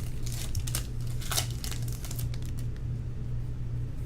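Trading cards and their packaging being handled: a quick run of papery rustles and clicks as cards slide past one another, thinning out after about two seconds, over a steady low hum.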